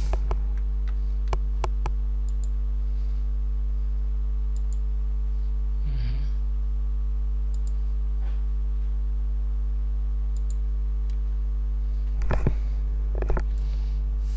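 Scattered computer mouse button clicks as edges are picked one at a time, over a steady electrical mains hum in the recording.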